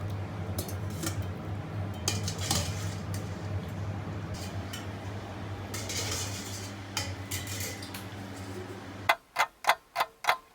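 Utensils and dishware clinking and scraping as cooked macaroni pasta is tipped into a plate, over a steady low hum. About nine seconds in, the hum cuts out and evenly spaced ticks begin, about two or three a second.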